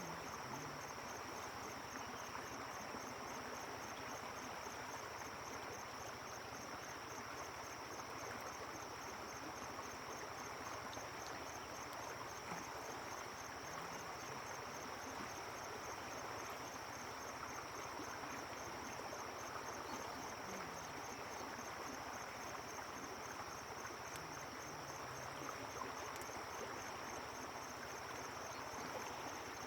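A steady, high-pitched insect trill, evenly pulsing, over the steady rush of a fast-flowing river.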